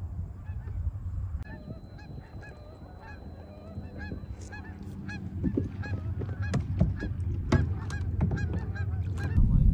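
Geese honking as they fly over: a run of short repeated honks, about three a second, growing louder in the second half. A steady low rumble runs underneath and gets louder just before the end.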